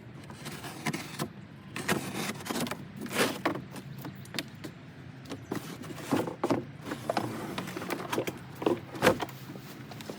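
Mower parts and packaging being handled out of a shipping box: irregular rustling with scattered knocks and clicks, the loudest knock about nine seconds in.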